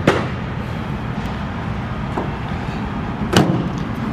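Two sharp clicks or knocks, about three seconds apart, over a steady workshop hum and hiss.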